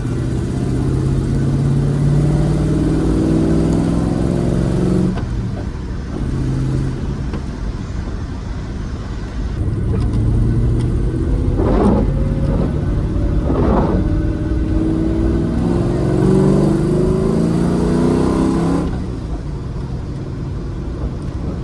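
Rover SD1 Vitesse's 3.5-litre V8 driving the car, rising in pitch as it accelerates, dropping at a gear change about five seconds in, then pulling up through the revs again before easing off near the end. Two short louder noises break in about twelve and fourteen seconds in.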